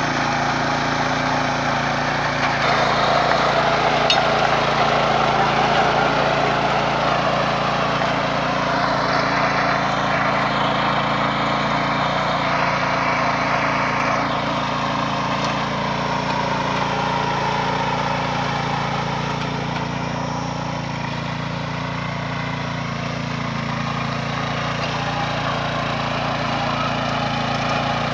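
Small engine of a walk-behind mini tiller running steadily under load while its rotating tines churn into grassy soil, the engine note dipping slightly now and then as the tines bite.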